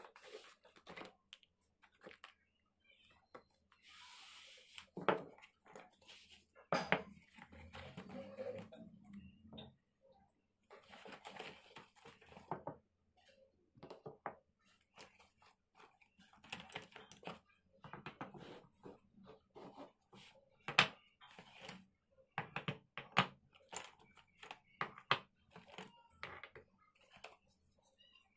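Pale chalky stone blocks handled out of a cardboard box and set down one by one on a tabletop: irregular clacks and knocks of stone on stone and on the table, with a few stretches of cardboard rustling and scraping.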